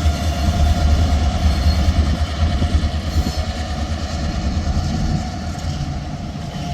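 Diesel locomotives of a freight train rumbling, a low steady drone with a faint steady whine above it, easing slightly near the end.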